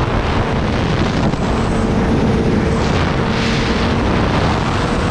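Kawasaki Ninja ZX-10R's inline-four engine running steadily at highway cruising speed, heard under heavy wind rush on the microphone.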